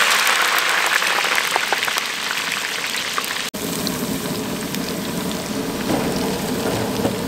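Frozen tater tots sizzling and bubbling hard in deep oil in a cast-iron pot. After a short break about three and a half seconds in, the frying goes on quieter and lower in pitch.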